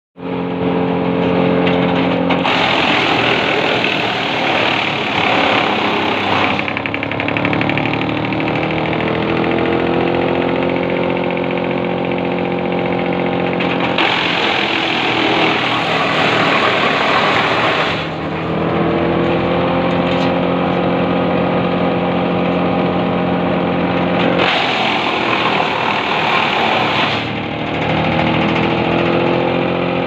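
Tractor-powered wood chipper running with a steady hum, chewing through wooden poles three times in noisy stretches of a few seconds each, near the start, in the middle and near the end. After each pole the machine's pitch rises as it picks back up to speed.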